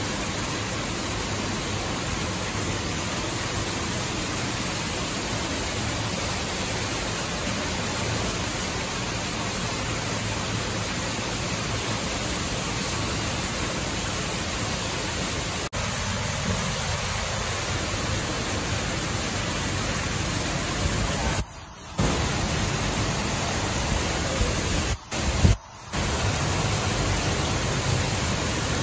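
Steady rushing hiss of water running into a small pond. It cuts out briefly a few times about three-quarters of the way through.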